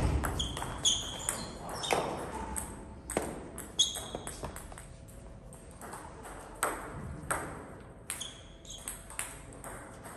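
Table tennis ball struck hard by a paddle at the very start, the loudest sound, followed by scattered light clicks of the ball bouncing and tapping, and a few short high squeaks.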